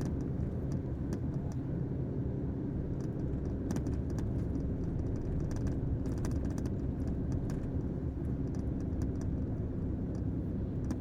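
Truck engine and road noise heard from inside the cab while driving: a steady low drone with scattered light clicks and rattles.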